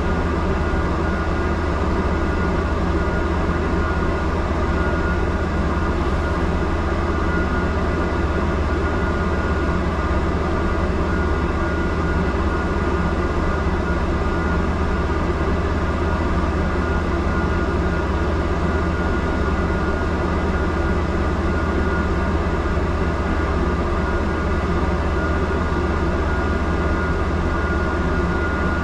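Double-decker bus standing at a red light, heard from inside its upper deck: a steady low rumble and hum from the bus's own machinery, with a faint steady high whine.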